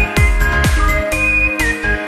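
Background electronic music with a steady beat: deep kick drums that drop in pitch, under held synth notes.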